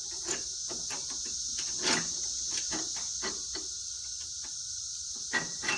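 Scattered clicks and light knocks of hand-handled bolts and washers from a lift kit, loudest about two seconds in and twice near the end, over a steady high insect buzz.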